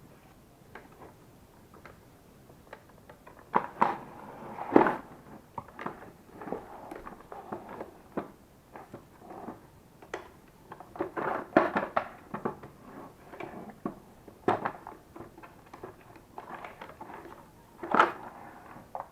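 Hard plastic parts of a vacuum cleaner clicking, knocking and scraping as it is taken apart by hand, in irregular handling noises with a few sharper knocks.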